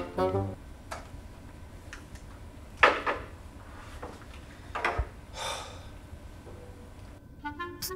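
A few sharp knocks and clunks from a lecture chair's fold-away writing tablet being lifted as he gets up, the loudest about three seconds in, with a short rustle around the fifth second. Music stops at the start and comes back near the end.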